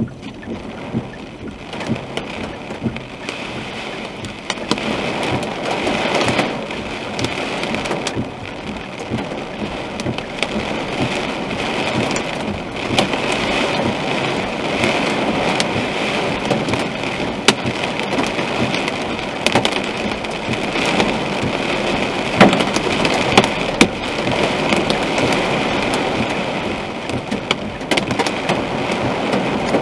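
Hail and heavy rain hitting a car's body and windshield, heard from inside the car: a dense patter with many sharp single hailstone hits, getting louder a few seconds in.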